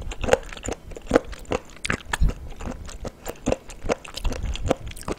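Close-miked chewing of raw whole abalone: a run of irregular short clicks, several a second, as the firm, chewy flesh is bitten and worked between the teeth.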